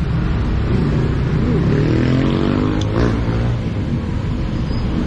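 Road traffic rumbling, with a vehicle engine speeding up as it passes about halfway through.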